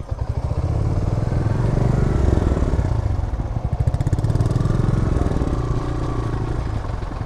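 A TVS Raider 125's single-cylinder motorcycle engine running close by with a fast, steady beat. The revs swell and ease a little around the middle.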